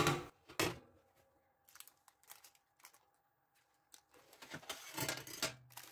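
Baking paper rustling and crinkling, mostly in the last two seconds, with a soft knock about half a second in, as a freshly baked sheet of sponge cake on its paper is handled.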